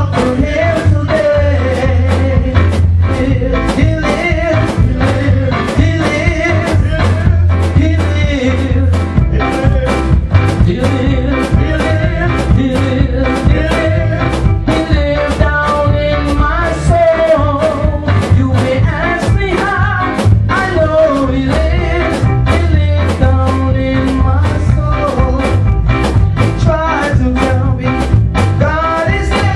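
Music with singing: a band with a steady drum beat and bass line under a voice.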